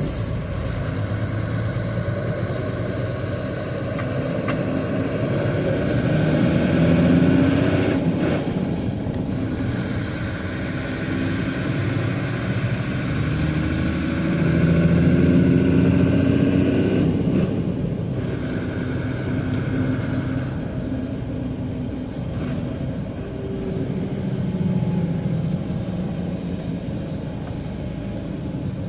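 Truck engine heard from inside the cab, pulling away and accelerating: its pitch climbs as it pulls and drops back at each gear change, several times over.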